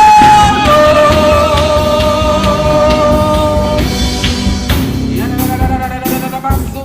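Live church worship music with long held melody notes over a band. A high note gives way to a lower one under a second in, and cymbal strokes come in during the second half.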